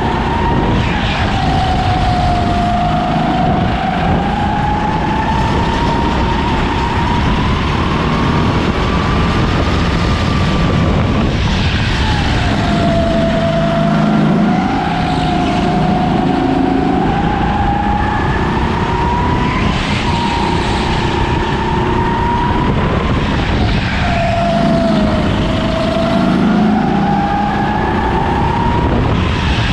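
Racing kart engine at full throttle, its pitch climbing slowly and then dropping sharply a few times as it comes off the throttle, about twice a minute's worth of corners in half a minute.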